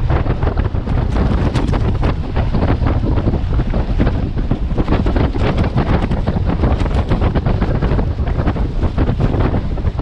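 Heavy wind buffeting on the microphone, with a camouflage net's leaf strips flapping and fluttering in the airstream on a moving car. The flapping keeps up fast and irregular.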